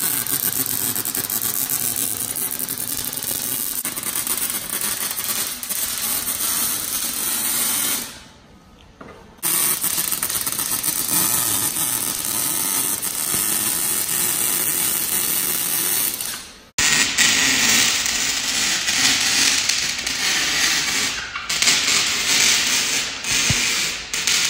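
Welding a joint on a straight-pipe car exhaust: the tacked seam is being filled in with continuous runs of the welding arc. The welding pauses for about a second some eight seconds in and breaks off sharply near seventeen seconds, then goes on with more hiss.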